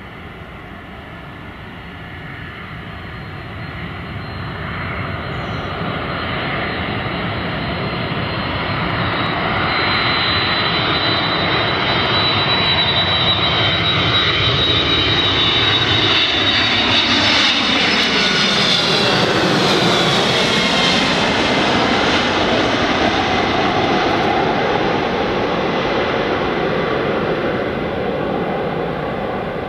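Twin-engine jet airliner on landing approach passing low overhead: the engine roar grows steadily louder, peaks about midway with a high whine, and the pitch of the whine and the lower engine tones drops as the aircraft goes by, then the sound eases off as it descends toward the runway.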